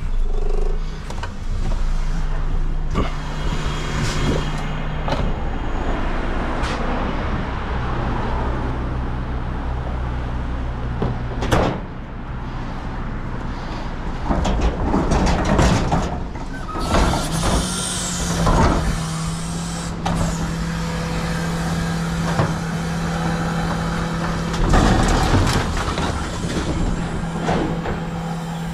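Renault refuse collection truck running at the kerb, a steady engine and hydraulic hum that shifts pitch a few times and settles higher about two-thirds of the way through. Repeated metallic clunks and knocks from the rear bin-lift mechanism sound over it.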